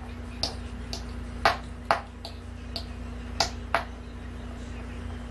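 A series of short, sharp clicks or taps, about seven in four seconds at uneven spacing, over a steady low hum.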